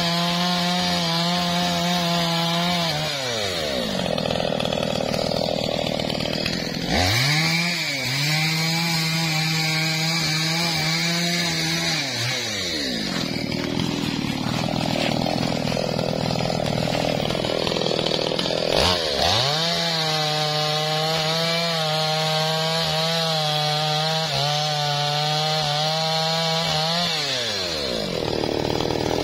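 Two-stroke gasoline chainsaw sawing through felled teak limbs: held at full throttle three times for several seconds each, the pitch falling back to idle between cuts.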